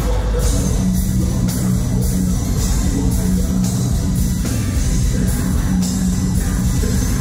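A rock band playing live and loud: a heavy, repeated low riff over drums and guitars.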